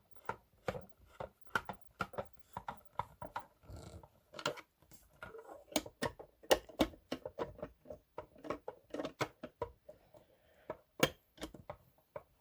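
Irregular clicking and tapping, many short knocks at an uneven pace, from handling the speaker's parts during a teardown.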